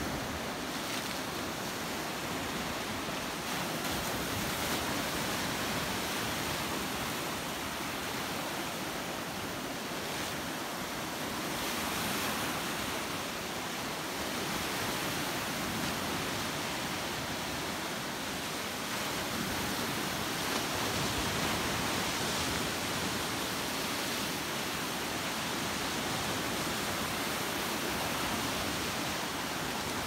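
Sea surf: waves breaking and washing over the shallows in a steady rush that swells and eases every several seconds.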